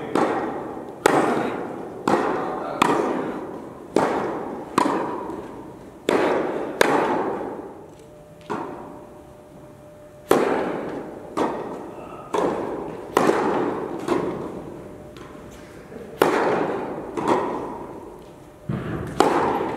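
Tennis balls struck by rackets and bouncing on the court, echoing in a large indoor tennis hall. The sharp hits come about once a second, each with a long ringing tail. They pause twice, and after the first pause a serve starts the next point.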